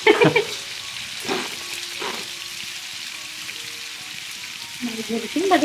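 Marinated chicken pieces frying in hot oil in a pan, being browned to golden: a steady sizzle, with a voice briefly near the start and again near the end.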